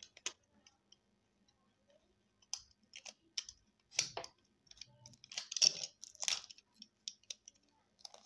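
Utility knife blade cutting and scraping into a cardboard cigarette pack: a string of short scratches and clicks that start about two and a half seconds in.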